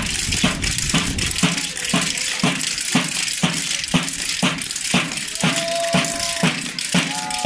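Procession music: a drum beaten steadily at about two strokes a second, each stroke with a rattling crackle over it, and a brief held high note near the end.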